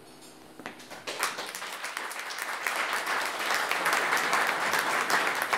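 Audience applauding: a few scattered claps about half a second in, swelling within a second or two into full, steady applause.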